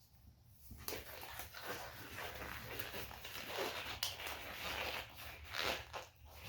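Crinkling and rustling of small plastic cups and packaging being handled, a run of short, irregular scrapes starting about a second in.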